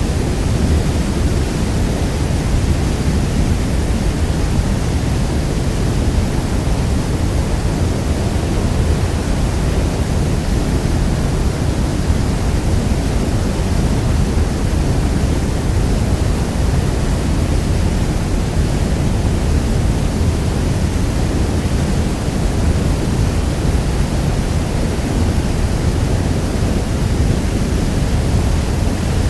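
Niagara Falls, a huge waterfall, giving a steady, unbroken rush of falling water that is deepest and heaviest in the low end.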